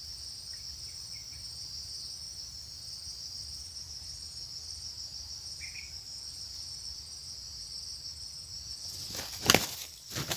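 A steady, high-pitched insect chorus drones throughout. About 9 s in, a few sharp, loud bursts of wing flapping break out as two red junglefowl roosters clash: a wild cock squaring up to a decoy.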